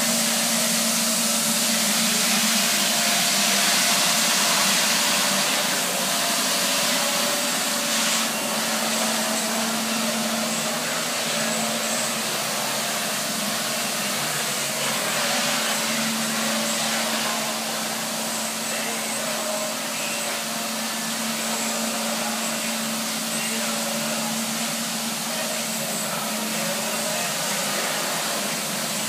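Nilfisk BA531D walk-behind scrubber dryer running, with a steady hum and hiss from its motors.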